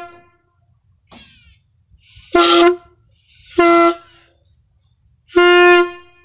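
Homemade air horn giving three short blasts of one steady, low-pitched tone, each under a second long, the last slightly longer.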